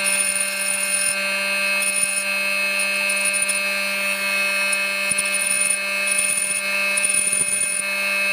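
Small handheld rotary tool running steadily with a small abrasive disc, grinding the end of a steel saw blade: a constant motor whine over a grinding rasp.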